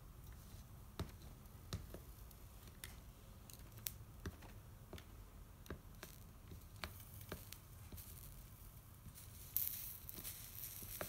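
Faint, irregular crackles and small pops as a soldering iron melts solder wire into a seam of a stained glass lampshade, the flux spitting at the hot joint. A brief sizzling hiss comes near the end.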